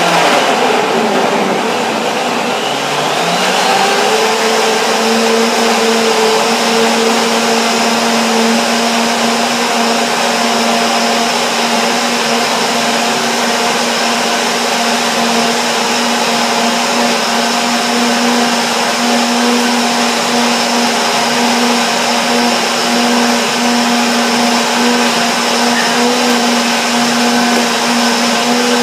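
Countertop blender running at high speed, blending orange and kale into a smoothie. The motor's pitch shifts over the first few seconds, then holds steady and loud.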